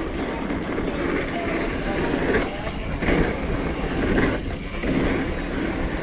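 Mountain bike riding a dirt trail: tyres rumbling over the ground and the bike rattling, with wind buffeting the GoPro microphone in uneven surges.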